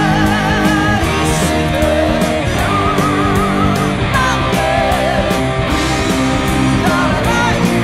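Electric guitar played along with a progressive rock band backing track, picking a melodic line with held notes that waver in pitch.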